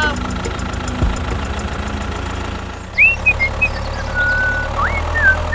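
Tractor engine idling with a steady low chugging, a fast even pulse throughout. In the second half, a few short high whistling chirps and glides sound over it.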